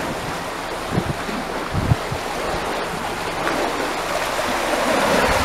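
Canal lock water rushing and churning as it pours out through the open paddles of the lock gate, a steady rush that gets louder toward the end. Two short low thumps come about one and two seconds in.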